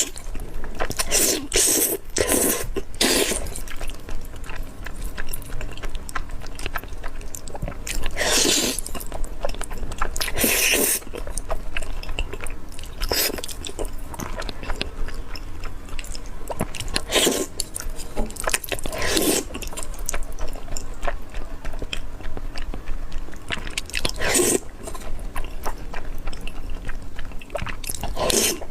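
Close-miked eating of spicy fire-chicken instant noodles: wet slurps and chewing in irregular bursts every second or two, a few of them drawn out for about a second.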